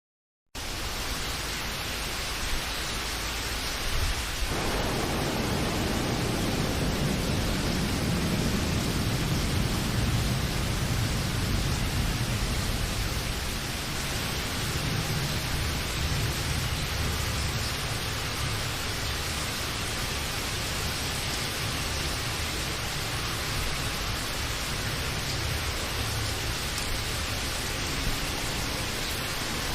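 Steady rain falling, a dense even hiss that starts abruptly about half a second in. A low rumble joins about four seconds in and swells for several seconds before easing back under the rain.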